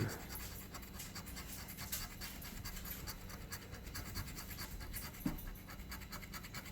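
Scratching the coating off an instant lottery scratch ticket in quick, repeated strokes.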